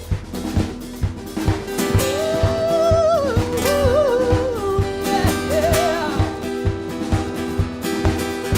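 Live rock band playing a song's intro: a drum kit keeps a steady beat over bass and held chords, and a bending melodic lead line comes in about two seconds in.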